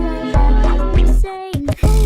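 Background music with a strong, repeating bass beat and pitched melody notes.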